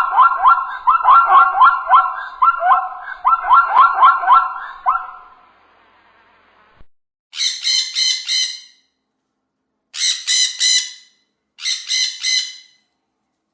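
Animal calls, bird-like. First comes a fast run of sharp, repeated pitched calls for about five seconds. After a pause come three short bouts of higher, harsh squawking notes.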